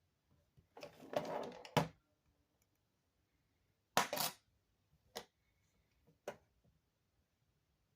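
Small hard objects being handled on a work surface during a phone repair: a rustling scrape ending in a sharp click, then a louder clack and two more single clicks.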